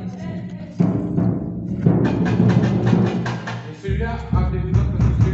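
Batucada drum ensemble playing a rhythm: stick strokes on snare and hand drums, with deep bass drums coming in strongly just before four seconds in.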